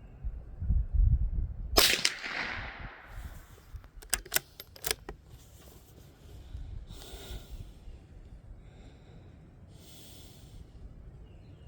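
A single .22 LR rifle shot from a Tikka bolt-action rimfire, about two seconds in, sharp and short with a brief echo. About two seconds later comes a quick run of metallic clicks as the bolt is worked for the next round.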